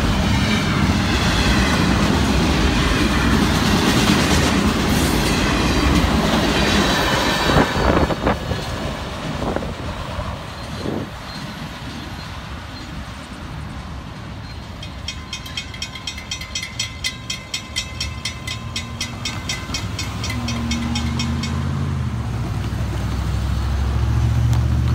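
A double-stack intermodal freight train rolls past close by for the first eight seconds or so, its wheels rumbling, clacking and squealing on the rail. Later a grade-crossing bell rings rapidly for a few seconds. Toward the end road vehicles drive over the crossing, their engines rising in level.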